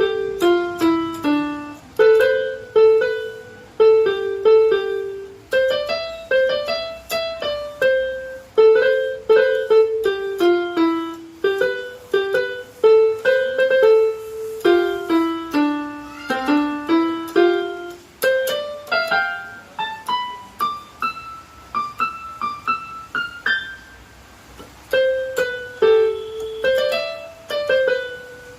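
Keyboard with a piano sound playing a simple beginner's melody, mostly one note at a time at an even pace. There is a brief pause near the end before the tune picks up again.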